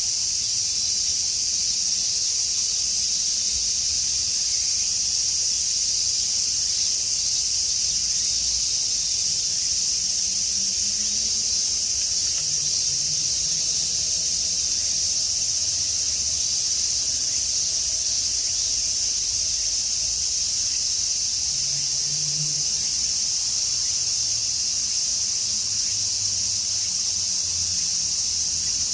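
A chorus of cicadas shrilling steadily, a dense high-pitched buzz that keeps up without a break.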